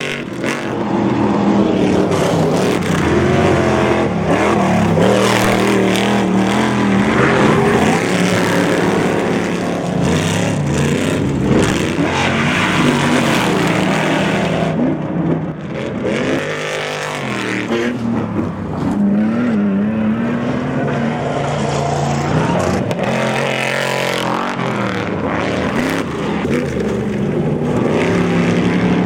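Off-road race truck's engine running hard throughout, its pitch climbing and falling again and again as it revs and shifts, with a short drop in revs about halfway through.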